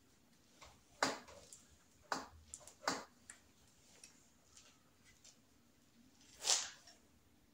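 A few scattered sharp clicks and knocks from handling a bar-end mirror on a motorcycle handlebar: one about a second in, two more around two to three seconds, and a louder one near the end.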